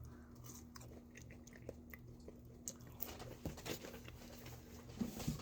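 A person biting and chewing French fries dipped in sauce: faint wet mouth sounds and small clicks, with a few louder ones about three seconds in and again near the end. A faint steady hum runs underneath.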